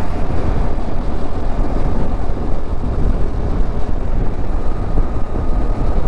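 Motorcycle riding at about 50 km/h: engine and wind noise on the microphone as a steady loud rumble, with a faint steady whine in the second half.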